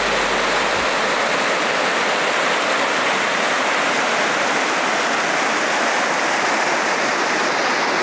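River water rushing steadily over rock ledges at a small waterfall and rapids.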